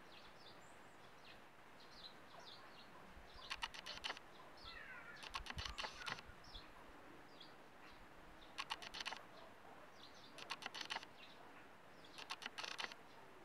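Faint birds chirping, broken by five short bursts of rapid clicking, each lasting under a second.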